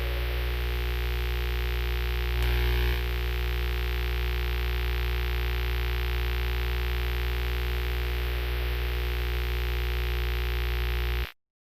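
A steady electronic drone hum made of many held low tones. About two and a half seconds in there is a brief louder burst of noise, and near the end the hum cuts off abruptly into silence.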